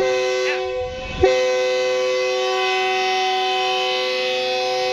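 GE U20 diesel locomotive's horn sounding close by, several tones at once: a short blast, a brief dip, then a long blast from about a second in, held steady.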